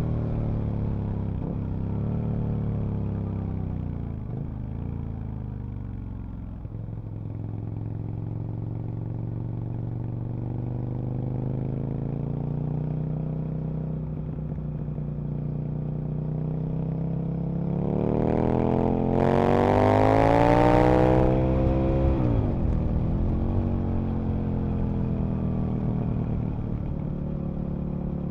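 Aprilia RSV Mille RP's 998 cc V-twin engine under way, its pitch rising and falling with the throttle. About 18 s in it pulls hard, the pitch climbing and the sound at its loudest, then drops sharply as the throttle closes before running on steadily.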